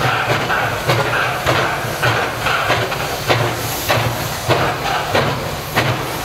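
SY class 2-8-2 steam locomotive working hard with a loaded coal train, its exhaust beating slowly and evenly at about two chuffs a second over a steady hiss of steam.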